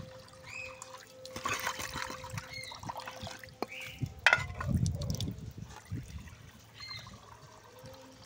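Water running from a plastic pipe into a shallow clay bowl, trickling and splashing as the bowl fills. A single sharp knock a little past four seconds in.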